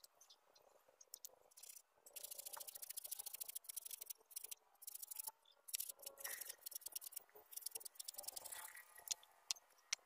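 Faint hand-sawing of a wooden plank: a run of rasping saw strokes for a few seconds, followed by a few scattered knocks and clicks near the end.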